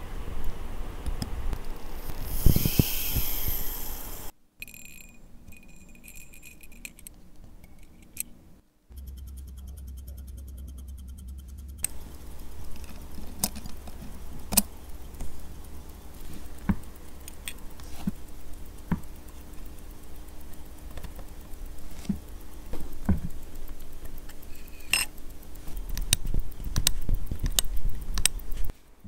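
Steel tweezers and small watch parts clicking and clinking against the metal plates of an automatic watch movement during assembly, in scattered sharp ticks. A brief louder rustling scrape comes about two to three seconds in.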